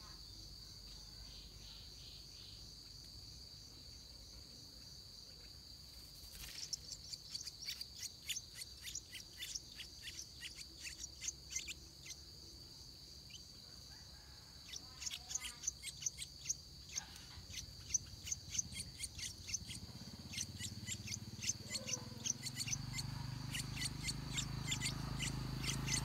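Stripe-throated bulbul nestlings begging in runs of rapid, very high chirps as the parent comes to feed them, over a steady high-pitched insect drone. A low rumble builds near the end.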